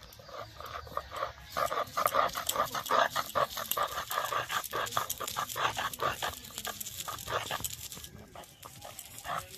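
Soaked urad dal being ground by hand on a flat stone grinding slab (shil) with a stone roller: rhythmic rough rubbing and scraping strokes of stone on stone through wet lentil paste.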